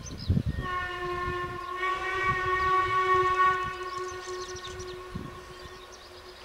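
Steam locomotive whistle blowing one long blast of about five seconds, starting about half a second in, swelling a second later, then fading. Birds chirp faintly, and a low thump comes near the start.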